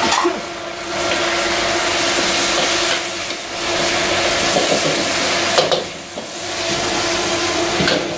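Fried chicken strips sizzling as they go into hot sauce in a wok over a gas flame. A metal ladle stirs and clinks against the wok a couple of times, over a steady hum.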